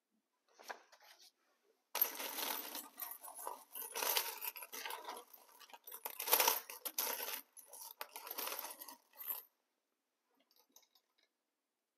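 Coins clinking and jingling in a dense run of small metallic strikes, starting about two seconds in and stopping abruptly near the end.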